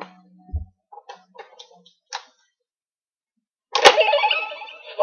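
Plastic clicks and a soft thump from a Tensouder toy morpher being handled with a card, then a sharp click about four seconds in as the toy's small speaker starts playing a loud electronic voice and sound-effect clip.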